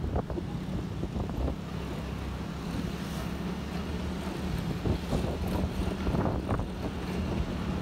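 Wind buffeting the microphone over the steady low hum of a motorbike engine while riding along.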